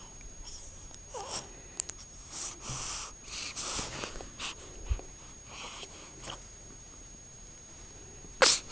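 Breathy snuffles and drawn-out exhalations over the first few seconds, typical of a yawn. Near the end comes one short, loud, sharp burst that fits a sneeze.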